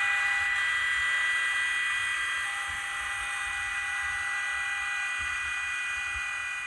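HO-scale ČD class 163 electric locomotive model's ESU LokSound 5 sound decoder playing the locomotive's thyristor whine: several steady high tones over a soft hiss, slowly getting quieter, then cutting off suddenly near the end.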